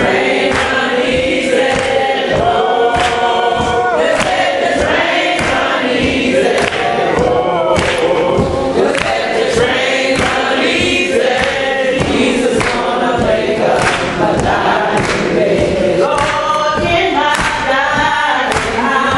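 Gospel singing by a group of voices, with hand clapping keeping a steady beat.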